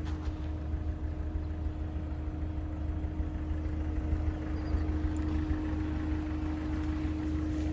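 Ford Figo's turbo-diesel engine idling steadily with an even, constant hum, running after a carbon-cleaning treatment.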